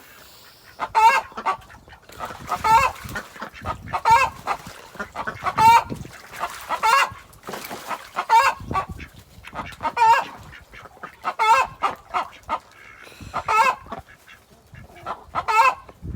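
A hen calling loudly over and over, a burst of squawking calls about every second and a half. The owner takes it for the hen's "chicken song", the call hens give after sitting in the nest.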